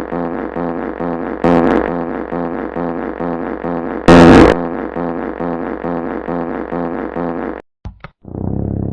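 Electronically processed, looped sound-effect variation, music-like, with a steady pulse about twice a second. Two loud noisy blasts come through it, about 1.5 s and 4 s in, the second the loudest. It cuts off near the end and a different low buzzing sound begins.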